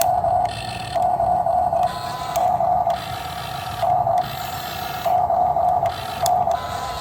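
Excavator working, its low engine rumble steady under a whine that comes and goes in spurts of about a second as the machine works.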